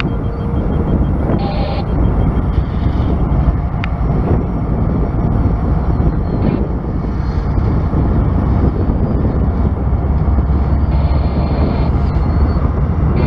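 Diesel freight locomotive approaching, a steady low rumble that grows heavier in the second half.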